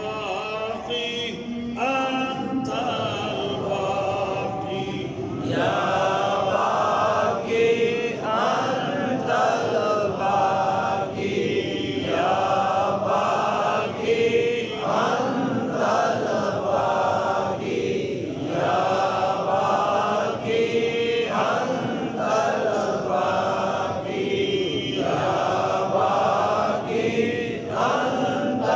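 A group of voices chanting a short devotional phrase together, repeated over and over in a steady cycle of about two seconds: Sufi dhikr at a Qadri gathering.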